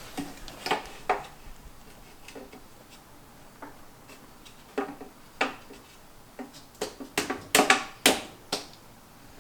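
Light metallic clinks and knocks of engine parts and hand tools being handled, scattered at first, then a quick run of sharper knocks near the end.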